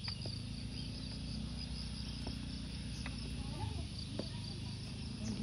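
Insects chirring steadily in a high, pulsing drone, over a low rumble.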